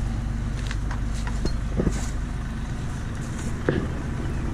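Backhoe engine idling steadily, with a few light clicks and knocks over the top.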